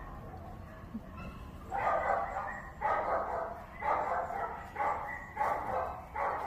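A dog barking repeatedly, about once a second, starting a little under two seconds in; the barks come slightly closer together toward the end.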